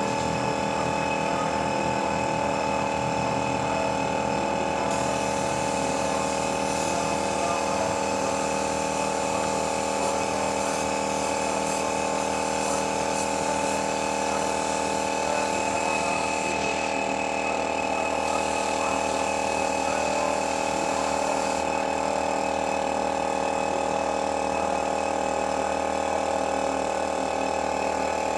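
Compressed-air paint spray gun spraying, a steady hum with a hiss whose sharp top end comes and goes for stretches as the trigger is worked.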